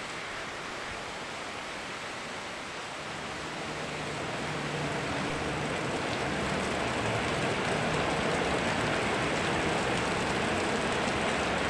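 Steady hiss of rain and rushing river water that swells louder over a few seconds about a third of the way in, with a faint low hum beneath it partway through.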